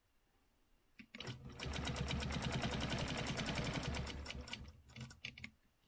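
Quilting machine stitching with its hopping foot running along a straight ruler. A click about a second in, then the machine runs for about three seconds with a rapid, even needle beat over a low hum and stops. A few light clicks follow near the end.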